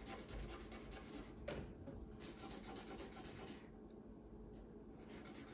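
A marker colouring in on paper: faint, quick back-and-forth strokes of the tip rubbing across the sheet.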